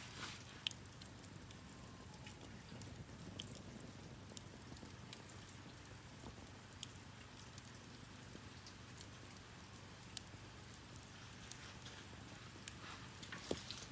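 Campfire crackling: faint, irregular sharp pops and snaps scattered over a low steady background.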